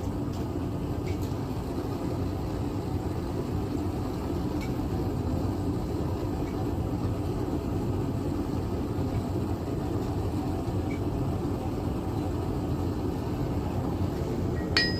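A blacksmith's forge running with a steady, low rushing noise and no hammer strikes.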